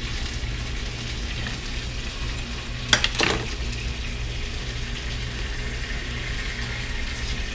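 Chicken frying in a pan with a steady sizzle, and a short sharp knock of the kitchen knife about three seconds in.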